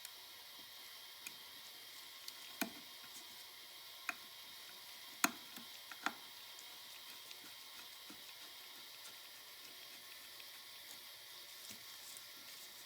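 A few sharp, separate clicks and taps of small metal parts, washers and nuts being fitted onto a phonograph motor casting, over a faint steady hiss; the loudest click comes about five seconds in, the rest scattered and quieter.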